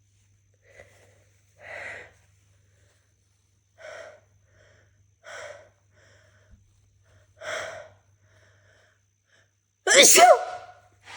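A person's sneeze build-up: a series of gasping in-breaths every second or two, then one loud sneeze near the end, followed by a short breath. It is one sneeze in a fit that won't stop.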